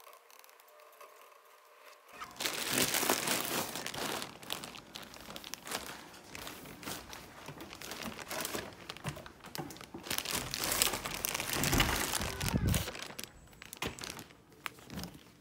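Crinkling and crumpling of something being handled. It starts about two seconds in and grows louder and softer by turns until shortly before the end.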